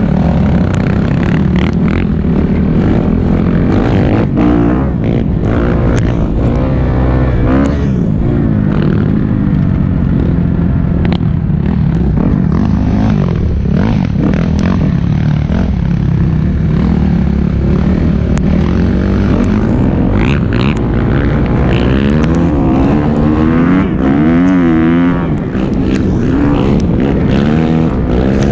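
Yamaha YFZ450 ATV's single-cylinder four-stroke engine running steadily, its pitch wavering up and down through the second half.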